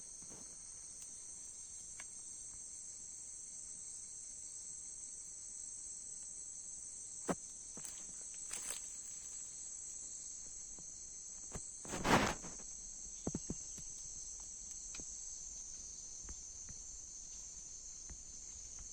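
Steady high-pitched insect chorus, with a few scattered knocks, the loudest about twelve seconds in.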